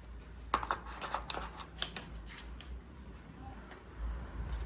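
Clicks, taps and rustles of hands handling smartphone packaging, a quick run of sharp clicks early on that thins out to scattered ones.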